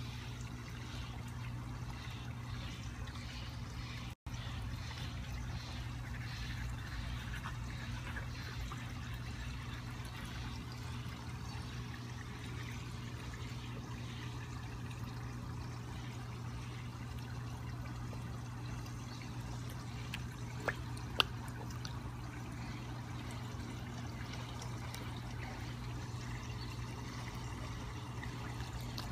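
Steady trickling water of a koi pond over a low, constant hum, with two sharp clicks close together about two-thirds of the way through.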